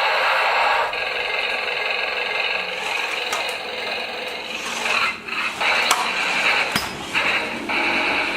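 Toy RC tank driving: its small geared motors and plastic tracks whir and rattle, stopping and starting several times.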